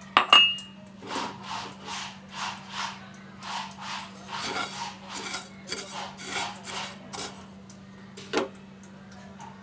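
Wooden spatula stirring fennel seeds as they dry-roast in a non-stick frying pan: a rhythmic scraping of about two to three strokes a second. There is a sharp clink just after the start and a single knock near the end.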